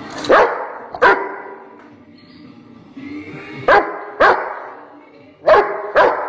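A Rottweiler barking: six deep, loud barks in three pairs, each pair about half a second apart, with faint music underneath.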